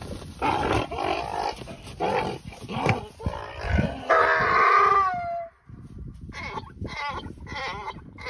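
Donkey braying in harsh, loud calls: a run of rough calls with the longest and loudest about four seconds in, ending on a falling pitch, then after a short break a quicker series of short repeated calls.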